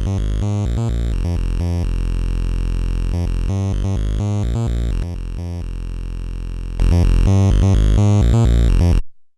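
An Amiga OctaMED synth instrument playing a repeating pattern of notes. It drops slightly in level about five seconds in, then gets clearly louder about seven seconds in as its volume list is raised to the maximum, hex 40. It stops abruptly near the end.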